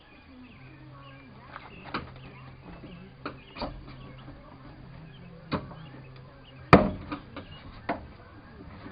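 Tool work on a pickup's interior door panel: irregular sharp clicks and knocks as the panel and its clips are worked loose, with the loudest knock about two-thirds through.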